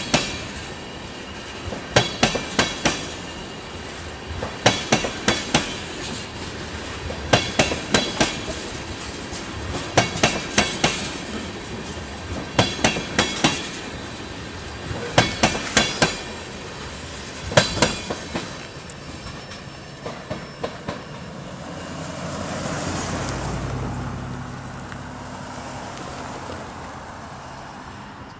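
Loaded freight tank cars rolling past, their steel wheels clacking over a rail joint in quick groups of about four clicks, one group every two to three seconds as each car goes by. The clacking thins out and stops as the last cars pass, and a low hum then swells and fades briefly.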